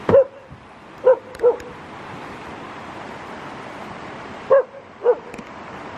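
An animal barking in five short, sharp barks, singly and in quick pairs, with pauses of a few seconds between, over a steady background hiss.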